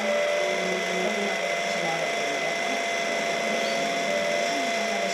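Electric linear actuator motor running steadily, with a constant whine and a loud grinding noise, the sign the owner questions when comparing it with a second, quieter unit.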